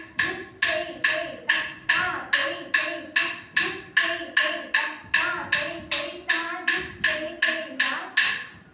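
Evenly spaced sharp percussive strokes, about three a second, each ringing briefly, beating time for classical Indian dance steps. The beat stops just before the end.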